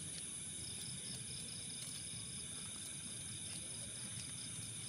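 Night-time insect chorus, mainly crickets: a steady high-pitched shrill with a pulsing chirp layered over it, holding an even level throughout.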